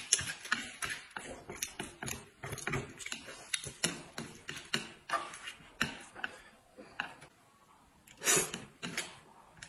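Close-up eating sounds of corn noodles being chewed: quick, irregular wet clicks and smacks of the mouth, with a longer breathy sound about eight seconds in.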